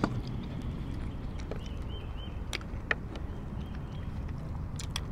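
Steady low rumble of wind on the microphone, with a few scattered small clicks and mouth sounds of people eating by hand.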